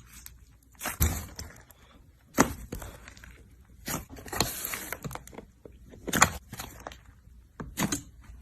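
Slime being pressed and squeezed by hand: a series of short, irregular crackling squishes, about six of them, with quiet gaps between.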